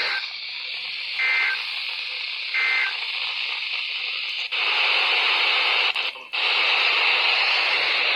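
Weather radio static hiss with two short bursts of warbling digital data tones, the EAS/SAME code, about a second and a half apart in the first three seconds. After that the static comes up louder and steady, cutting out briefly twice.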